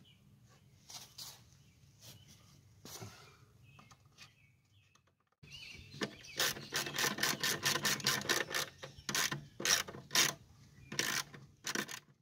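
Metal clicking and rattling of hands and tools working on the belt and deck parts under a Troy-Bilt TB30R riding mower. A few faint clicks at first, then after a brief dropout a dense run of quick, sharp clicks.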